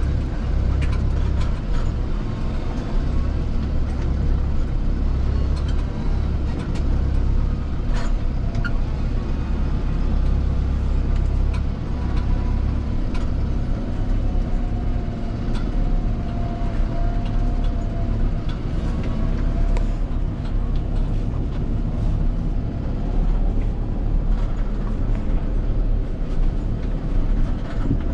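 Fendt 412 tractor's diesel engine running steadily at a constant load, with a faint wavering whine about halfway through and an odd knock.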